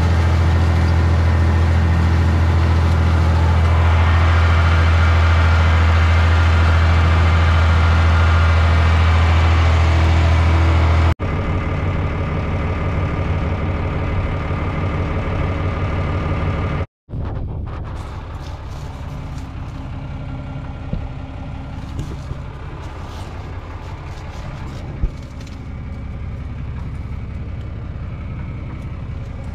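Farm tractor engine running steadily as it pulls a row-crop planter. After a cut about 11 seconds in it is lower, and after a brief dropout near 17 seconds it is quieter, with a few light clicks.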